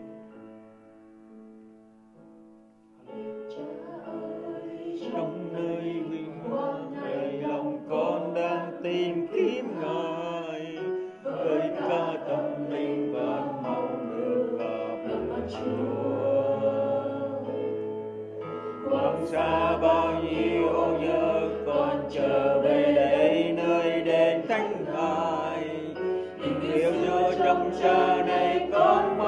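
Church worship band playing a praise song with several singers. It opens on a soft held chord, the voices come in about three seconds in, and a low bass line joins about halfway before the music grows louder.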